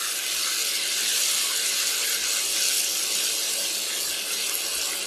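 Onion-and-spice masala sizzling steadily in a hot non-stick frying pan, the splash of water just added hissing as it boils off in the oil.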